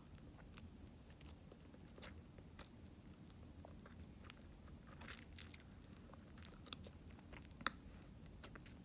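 Faint wet clicks and smacks of bubble gum being chewed and blown into bubbles, with a few sharper ticks in the second half.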